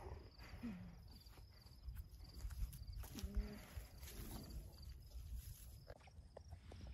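Alpacas humming softly, a short falling hum about a second in and another wavering hum about three seconds in, over crickets chirping steadily about twice a second and a low rumble of wind on the microphone.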